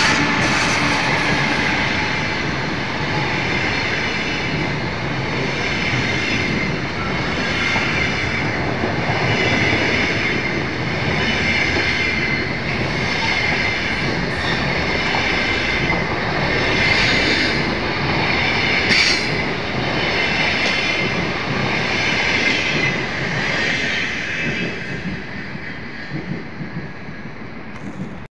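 Passenger train coaches rolling past at speed: a steady rumble of steel wheels on rail, with irregular clacks as the wheels cross rail joints. The sound fades in the last few seconds as the train moves away.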